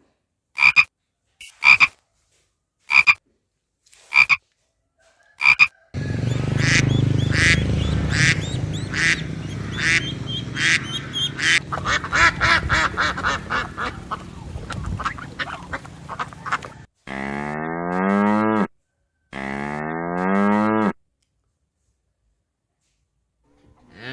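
A series of animal calls: five short calls spaced about a second apart, then a dense chorus of many overlapping calls, then two long pitched calls about a second and a half each.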